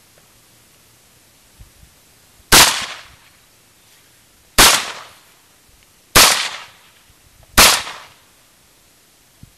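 AR-15 rifle fired four times in slow semi-automatic fire, the shots a second and a half to two seconds apart, each a sharp crack that trails off over about half a second.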